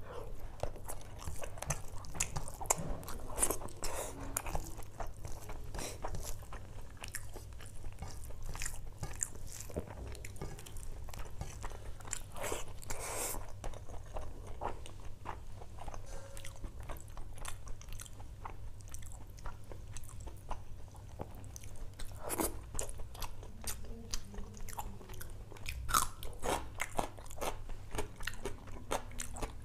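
A person eating rice and fish curry with his hand and chewing it close to the microphone: wet chewing and crunching with many sharp, irregular mouth clicks.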